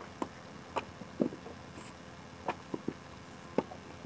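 Hand brick-moulding: wet clay being slapped and worked by hand and a wooden brick mould knocked on sandy ground, a handful of short sharp thuds and taps at uneven intervals, the loudest a little over a second in.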